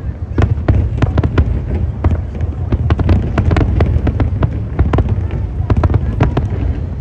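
Aerial fireworks: a dense, irregular run of sharp crackles and pops from glittering shells, several a second, over a steady low rumble.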